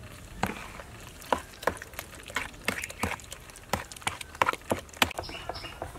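Metal spoon stirring a runny raw egg, fish roe and ground pork mixture in a bowl, clinking against the bowl in irregular sharp clicks, two or three a second.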